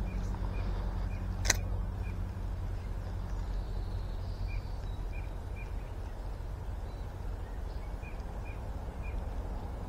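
A steady low rumble with short, high bird chirps now and then, and a single sharp click about a second and a half in.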